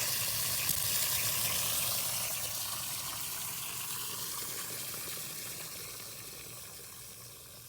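Water hissing as it jets from a leak in a buried hot-water pipe; loud at first, then fading steadily.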